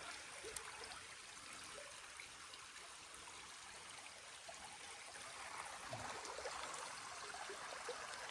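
Faint, steady sound of flowing stream water trickling, with a small click now and then.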